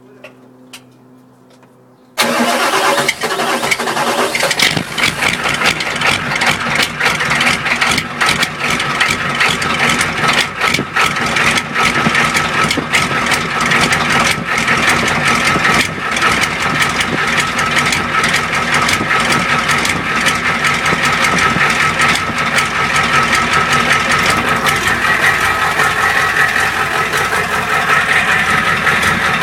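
A 7.3 L International/Navistar IDI non-turbo V8 diesel cold-starting: it fires suddenly about two seconds in and keeps running at idle, heard at the open end of its 4-inch exhaust pipe.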